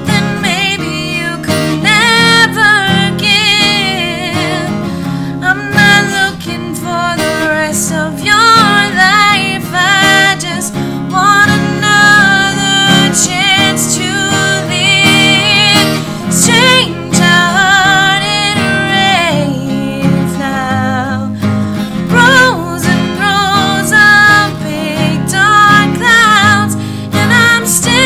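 A song: strummed acoustic guitar accompanying a singing voice with marked vibrato.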